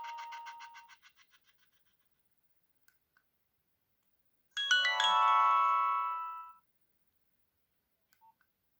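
Nokia 6030 mobile phone ringtones playing: the tail of one tone fades out in repeating notes over the first second and a half, and about four and a half seconds in a short tone sounds, a quick run of rising notes into a held chord that dies away within two seconds.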